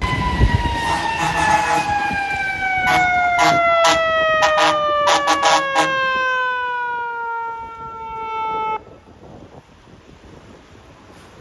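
Fire truck siren winding down in one long, slow fall in pitch. Between about three and six seconds in it is overlaid with a rapid series of short air-horn blasts. The sound cuts off suddenly near the end.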